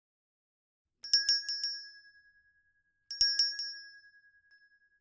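A handbell rung as a time's-up signal. About a second in comes a quick run of four strokes that rings on with a clear high tone and dies away. A second shake of three strokes follows about two seconds later.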